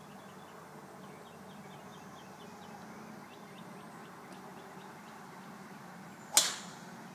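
Golf club striking a ball off a tee: one sharp crack about six seconds in, dying away quickly.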